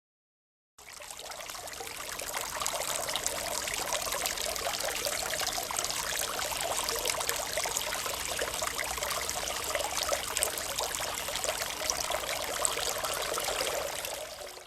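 Water trickling and splashing steadily from a small solar-pumped pond waterfall. It starts about a second in and cuts off at the very end.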